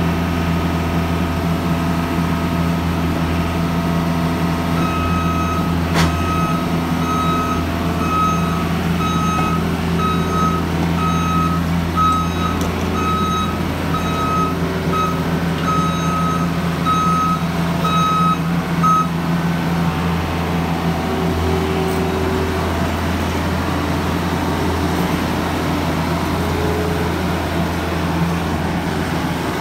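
Mustang 1650 compact track loader's engine running steadily, with its reversing alarm beeping in an even series from about five seconds in until about nineteen seconds in. A single sharp knock about six seconds in.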